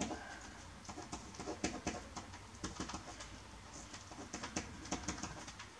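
Pen scratching on paper while a line of equations is written by hand: many short, irregular strokes over a faint low hum.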